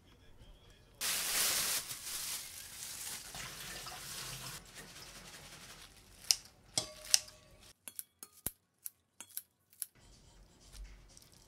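Kitchen scissors snipping red-leaf lettuce into a stainless-steel bowl: a series of sharp snips, two of them ringing briefly off the metal bowl. These follow a few seconds of rushing, rustling noise near the start.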